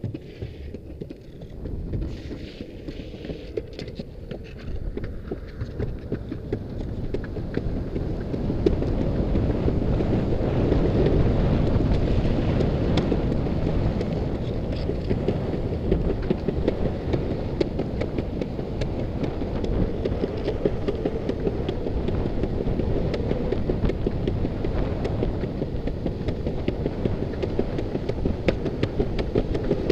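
Wind rushing over the microphone together with the rumble of longboard wheels rolling on a paved path, with occasional light clicks. It grows louder about eight seconds in and then holds steady.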